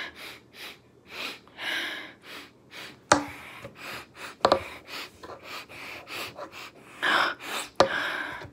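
A person sniffing a lip balm stick over and over: short, quick inhalations through the nose. There are a few sharp knocks, about three seconds in, again a second and a half later, and near the end, as the plastic lip balm sticks are set down on a wooden desk.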